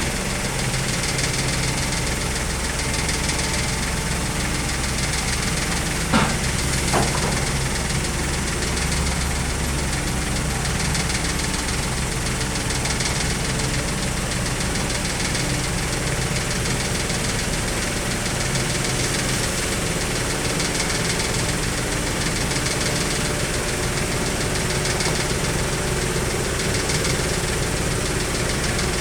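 Heavy diesel engine running steadily, with two brief sharp knocks about six and seven seconds in.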